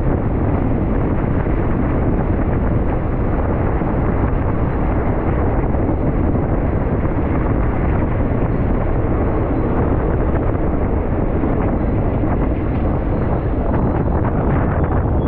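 Steady low rumble of wind buffeting the microphone, mixed with the running noise of a moving vehicle.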